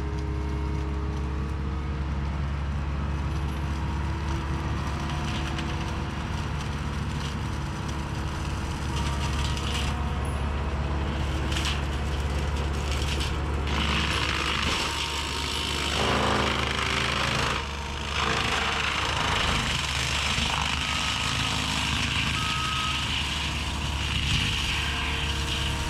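Engine of a heavy land-clearing machine running steadily and loud. About 14 seconds in, a higher rushing noise joins it and carries on.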